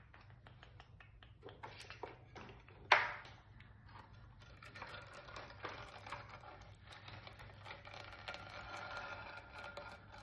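Small taps, clicks and scrapes from hands handling clay pieces and tools on a pottery workbench, with one sharp knock about three seconds in, over a faint steady low hum.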